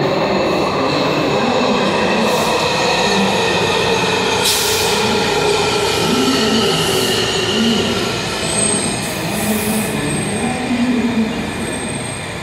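A Washington Metro electric train pulling into an underground station and running along the platform. The cars give a loud, steady rumble with whining tones and wheel squeal. A few short hisses cut in, the loudest about four and a half seconds in.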